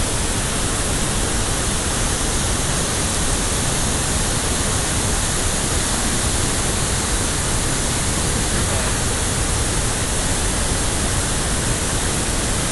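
Santo Antônio waterfall on the Jari River: water pouring over the falls in a loud, steady, unbroken rush.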